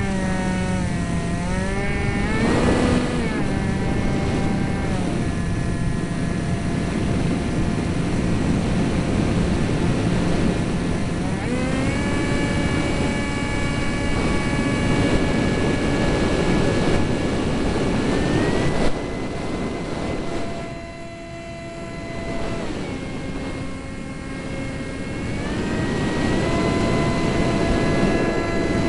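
Eurofighter Typhoon's twin Eurojet EJ200 turbofans running, a jet whine over a steady rush. The whine steps down early on, then rises in pitch about 12 s in and again near 19 s as the engines spool up. The sound briefly dips in loudness a little after 20 s.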